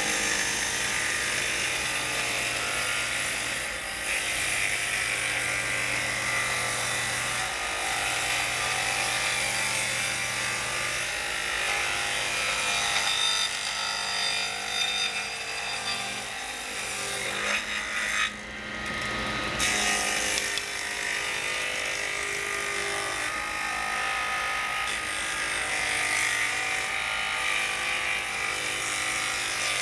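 Table saw running and cutting into fir boards while tenons are cut on the door rails, with a steady motor hum under the noise of the blade in the wood. The sound dips briefly about 18 seconds in.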